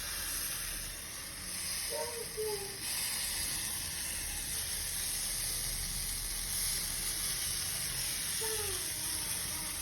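Pancake batter sizzling steadily in a hot pan, a high, even hiss.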